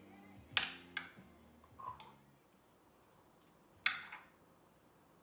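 A few sharp clicks and knocks of hard kitchen utensils and containers being handled and set down on the counter and breadboard, spaced irregularly about a second or two apart.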